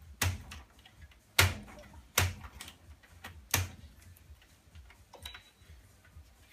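Sharp clicks and knocks from parts and cables being handled inside an old desktop computer case. Four louder clicks come in the first four seconds, with fainter ticks between.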